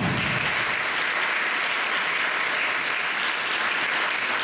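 An audience applauding steadily after a speech, with a brief low thump at the very start.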